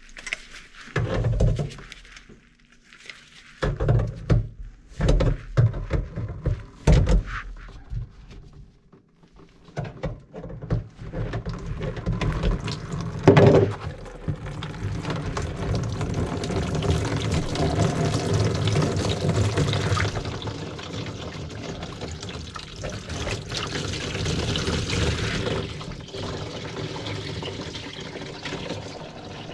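Several knocks and clatters as the kitchen sink's drain pipe is handled. Then, from about ten seconds in, a steady stream of water pours out of the opened drain into a plastic bowl, with one loud thunk early in the pour.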